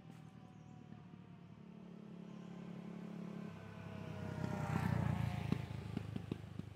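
A motor vehicle's engine passing by. It grows steadily louder to a peak about five seconds in, the pitch falls as it goes past, and then it fades, with a few sharp clicks near the end.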